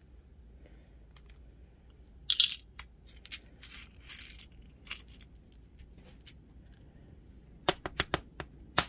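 Small glass Gem Duo beads rattling and sliding as they are tipped from a plastic triangle bead tray into a small plastic bead box, with a louder rattle about two seconds in. Light plastic clicks of the tray and boxes being handled, and a quick run of sharp clicks near the end.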